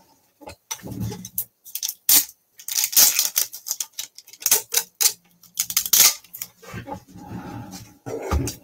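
Clear packing tape being pulled off its roll in a series of short, noisy rips, busiest and loudest in the middle few seconds.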